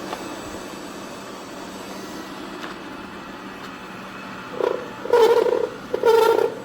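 Tikom G8000 robot vacuum mop running with a steady whirr. About four and a half seconds in, a much louder pitched tone sounds in short repeated pulses roughly a second apart.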